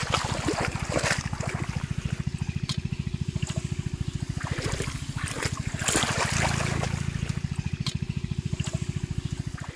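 Shallow water splashing and trickling as fish and hands move in it, with short sharp splashes here and there. Under it runs a steady, rapid low throb from a small engine, growing a little louder about six seconds in.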